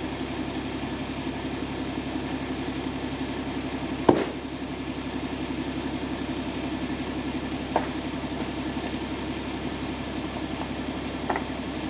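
Mercedes Unimog U1700L truck's diesel engine running steadily. A single sharp knock sounds about four seconds in, with two lighter clicks later.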